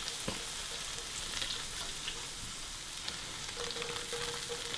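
Brown butter sauce sizzling and bubbling in a frying pan: a steady frying hiss with small scattered crackles.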